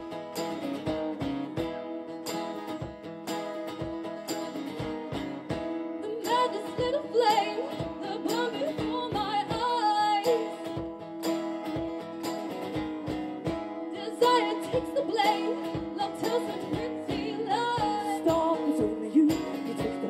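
Live acoustic guitar strumming in a steady rhythm. Singing comes in over it about six seconds in.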